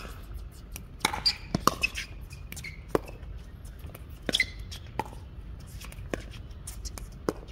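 Pickleball paddles hitting the hard plastic ball in a quick back-and-forth rally: sharp pops at uneven spacing, about one a second, with a fast pair about a second and a half in.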